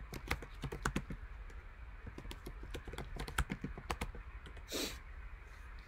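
Typing on a computer keyboard: a quick, uneven run of key clicks as a search query is typed, stopping about four seconds in. A short rush of noise follows about a second later.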